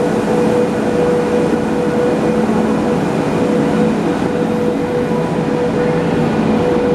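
Passenger coaches of an arriving express train rolling slowly past along the platform: a steady rumble of wheels on the rails with a steady hum underneath.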